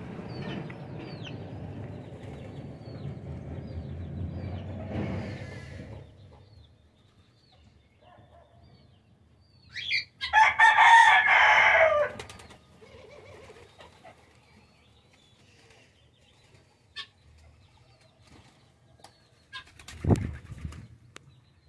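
A rooster crows once, loudly, for about two seconds near the middle. Before it there is a steady hiss with faint, high little bird chirps, and near the end comes a single dull thump.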